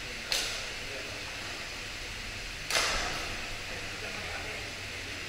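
Two sharp badminton racket strikes on a shuttlecock, about two and a half seconds apart, each ringing briefly in the echoing sports hall, over a steady hum of hall noise.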